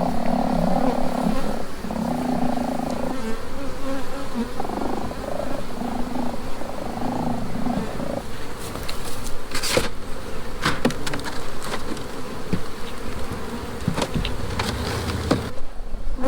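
Honey bees buzzing loudly around an opened, very full nuc box, the hum wavering in strength. From about halfway through come a series of sharp clicks and knocks.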